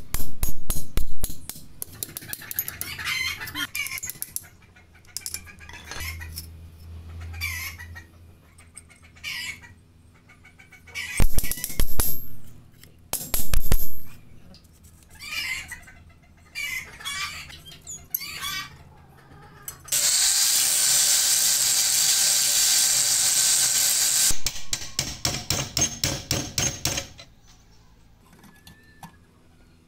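Hammer blows on a steel punch driving pins out of a rusty steel scissor car jack resting on an anvil: quick runs of sharp metal-on-metal strikes near the start, twice around the middle, and a fast run near the end. Between the strikes a rooster crows and clucks, and for about four seconds a steady hissing whirr sounds.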